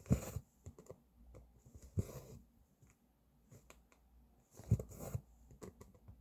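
Cross-stitching by hand: small clicks of the needle going through the fabric, and a few short swishes of thread being drawn through, two of them close together about two-thirds of the way in.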